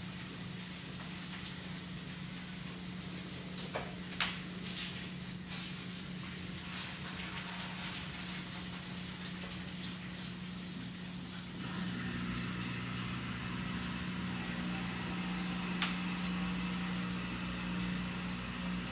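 Burger patties sizzling on a griddle, a faint steady hiss, over the steady low hum of a dishwasher running in the background. The hum grows a little louder about twelve seconds in. Two sharp clicks come about four seconds in and again near the end.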